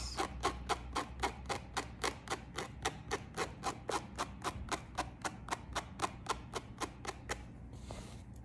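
Metal tweezers clicking shut in a steady rhythm, about four clicks a second, as hairs are plucked from a lace wig frontal. The clicks stop about seven seconds in.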